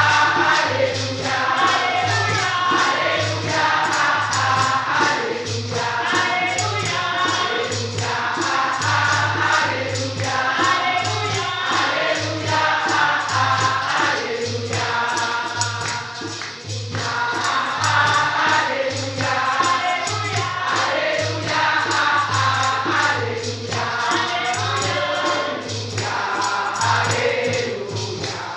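A congregation singing an upbeat gospel praise song together over a steady low beat, with a tambourine shaken and struck in rhythm.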